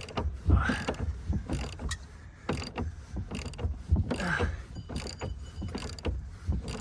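Hand ratchet wrench clicking in short, irregular strokes while working a hard-to-turn bolt loose.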